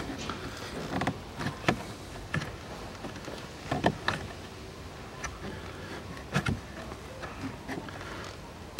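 Scattered plastic clicks and knocks from a 2013 Ford Explorer's glovebox as a hand works its lower pivot pin loose, with one sharp click at the very end.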